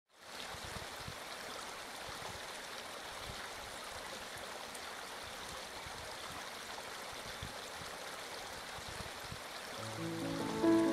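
Gently flowing stream water, a steady even rush. Soft music with held notes fades in near the end.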